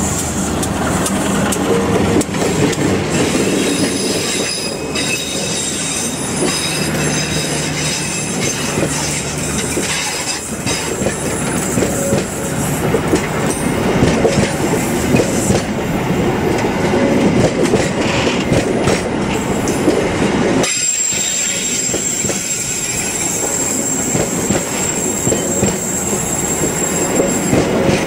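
A diesel-hauled passenger train passing close by, first the locomotive and then a long string of coaches rolling past with a continuous rumble and clatter of wheels on rail. About three-quarters of the way in, a steady high-pitched wheel squeal joins the rolling noise.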